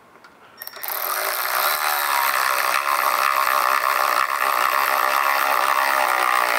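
Milwaukee M12 cordless 3/8-inch ratchet running in reverse-to-drive, whirring steadily as it drives a screw down into wood; the motor starts about a second in and runs without stalling.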